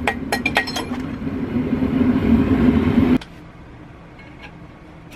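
A few quick hammer blows on steel at the anvil, then the steady roar of a propane forge burner that grows louder and cuts off sharply about three seconds in.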